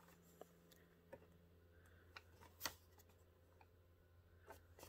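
Near silence with a few faint clicks and taps as a cardboard-and-plastic-window figure box is handled and turned over, one a little louder about two and a half seconds in.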